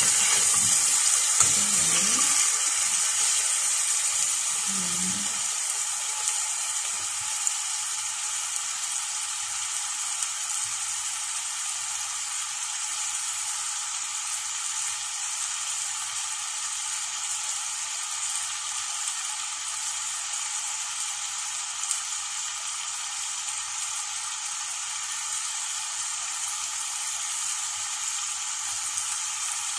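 Chicken pieces frying in a stainless steel pot, sizzling steadily, stirred with a spoon at first. The sizzle eases off over the first several seconds, then holds steady.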